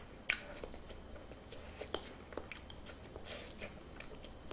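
A person chewing a mouthful of food with the mouth closed, close to the microphone: faint, scattered wet clicks and small mouth noises.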